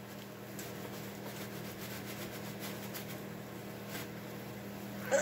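Steady low machine hum, with a few faint ticks as a spark plug is worked into its hole by hand.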